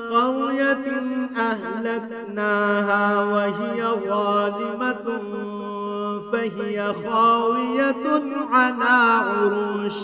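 A man reciting the Quran in Arabic in the melodic, drawn-out tajweed style, holding long ornamented notes with brief pauses for breath.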